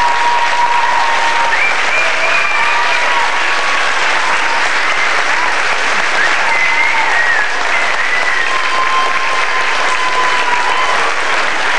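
A large audience clapping steadily and loudly, with a few drawn-out high cheers over the clapping.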